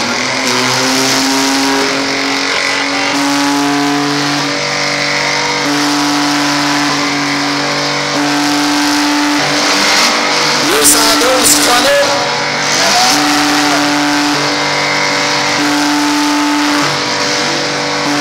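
Mid-size demolition-derby cars' engines revving hard and held at high revs, stepping up and down every second or two, as the nearly disabled cars strain to move in a pile. A few sharp knocks come about ten seconds in.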